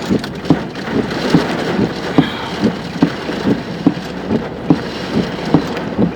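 Heavy rain drumming on a vehicle, with a regular low thump repeating about twice a second.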